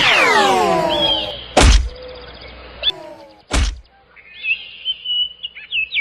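A falling whistle-like glide with several tones, then two sharp thunks about two seconds apart, fitting slingshot shots striking. Small birds chirp in the last second or two.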